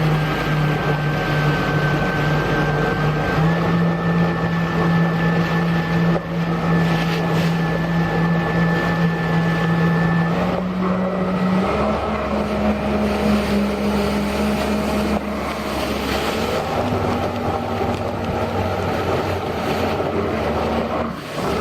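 Yamaha VX Sport jet ski engine running under way, its pitch stepping up and shifting a few times as the throttle changes, over rushing water noise.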